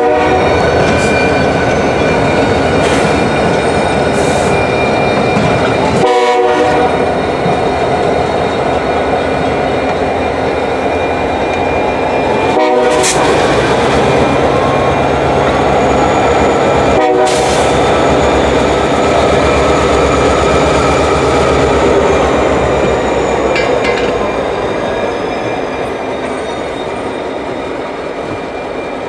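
Diesel freight locomotives passing close by, engines running and wheels rolling on the rails, fading as they move away near the end.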